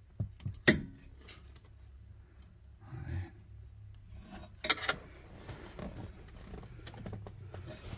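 Sharp clicks, taps and light rattles of a small screwdriver and plastic steering-column parts being handled, with two louder knocks, one under a second in and one near the middle.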